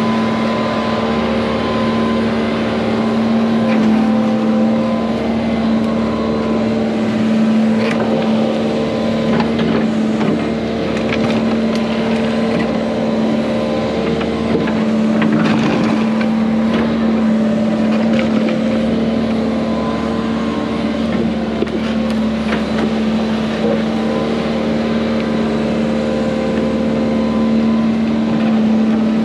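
Tracked excavator's diesel engine running steadily close by while its bucket backfills soil into a drain-tile trench, with scattered knocks of falling dirt and clods.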